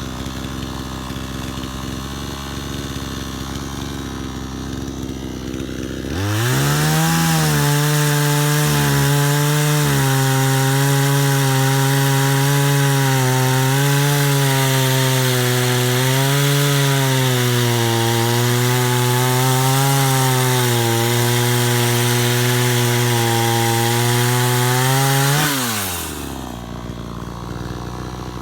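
PROYAMA 62cc two-stroke gas chainsaw idling. About six seconds in it is throttled up to high revs and held there for nearly twenty seconds, its pitch dipping and recovering. Near the end it drops back to idle.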